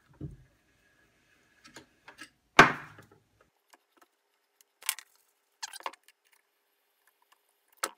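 A few scattered clicks and knocks as the small electric motor is handled and its tight shaft turned by hand, the loudest about two and a half seconds in.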